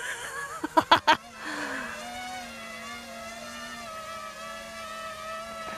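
A few sharp knocks about a second in, then the steady multi-tone whine of a small quadcopter's electric motors and propellers as the Starship-shelled RC drone climbs and hovers overhead. The pitch settles slightly lower soon after the knocks and then holds steady.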